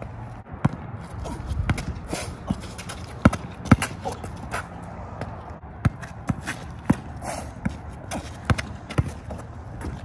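A basketball bouncing on concrete in sharp, irregular dribbles, mixed with sneaker steps and scuffs on the pavement.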